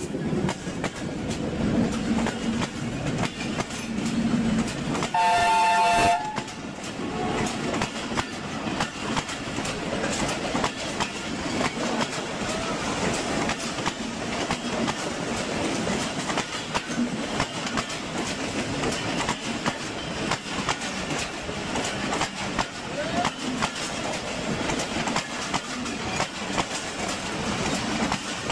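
Passenger coaches of two express trains passing close by on adjacent tracks, steel wheels clattering steadily over the rail joints. Around five seconds in, a locomotive horn sounds once for about a second, the loudest moment.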